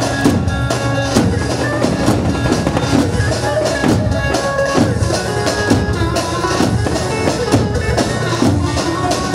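Live dance music led by davul bass drums beaten in a busy, driving rhythm, with a melody instrument playing held, wavering tones over them.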